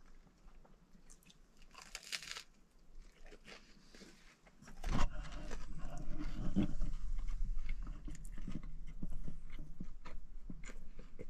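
A person biting into and chewing a freshly made avocado, egg and cheese sandwich, with crunching and mouth noises. The chewing turns louder and denser from about five seconds in.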